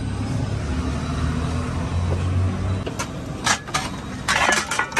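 A motor vehicle engine running with a steady low hum that stops about three seconds in, followed by clattering of steel serving plates being handled.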